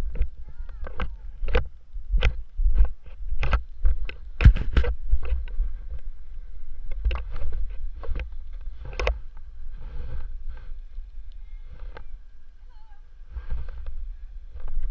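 Irregular sharp knocks and clunks, several a second in the first half and sparser later, over a steady low rumble of wind on the microphone: gear and boots banging while boarders load into a snowcat.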